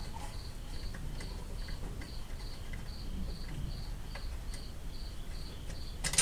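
Crickets chirping steadily in the background, a short high chirp a little more than twice a second. A few faint clicks, and one sharp clink near the end.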